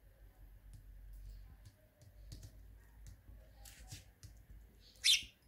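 House sparrow pecking seed off a woven placemat: faint, irregular light clicks of its beak on the table. Near the end, one short, sharp, high chirp.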